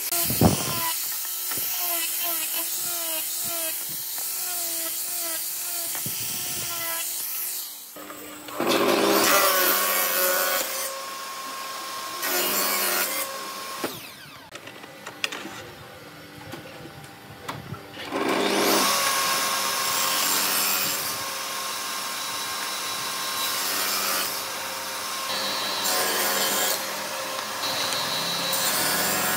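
An electric random orbital sander runs against the edge of a wooden board for the first eight seconds or so. After that a table saw runs and rips through wooden boards in loud passes, with a quieter lull in the middle.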